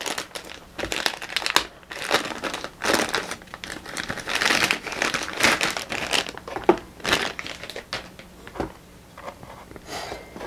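Thin plastic bag crinkling and rustling in irregular bursts as a metal mounting bracket is pulled out of it; the rustling is busiest in the middle and thins out near the end.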